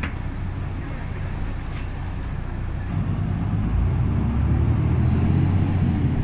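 Engine and road noise of a moving city bus heard from inside the cabin: a steady low rumble that grows louder about halfway through, with a couple of faint clicks.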